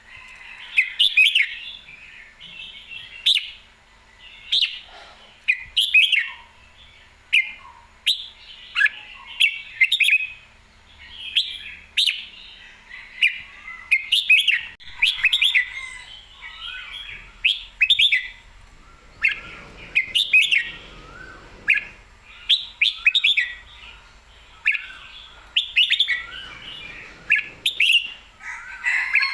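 Red-whiskered bulbul singing: short, bright whistled phrases repeated every second or two, with a few sharp clicks between them.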